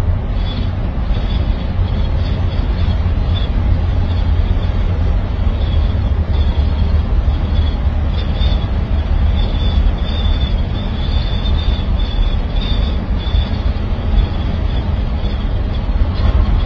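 Steady low rumble of road and engine noise inside a moving vehicle's cabin, unchanging throughout.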